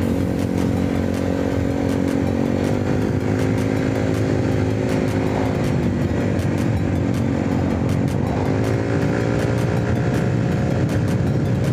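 Small motor scooter engine running under way with a rush of wind and road noise. The engine note climbs as it speeds up about three seconds in, eases off briefly, then climbs again near the end.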